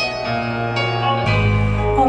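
Instrumental backing music between sung lines: sustained chords that shift about a quarter second in, with a deep bass note coming in past the middle.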